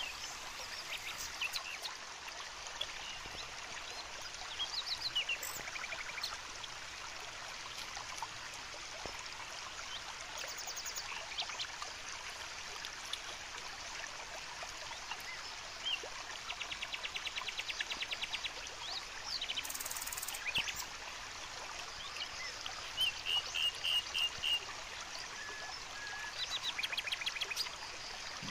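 Steady outdoor rushing like running water, with birds calling over it: scattered high chirps, a rapid trill about halfway through, and a run of about six loud notes some two-thirds of the way in.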